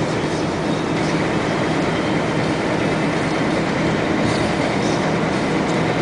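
Steady engine and road noise of a vehicle driving along a paved road, heard from on board.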